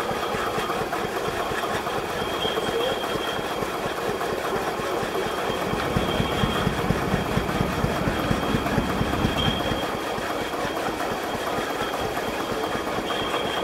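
1870 mechanical log saw and its driving engine running steadily with a fast, even rhythm. A faint high squeak comes back about every three and a half seconds.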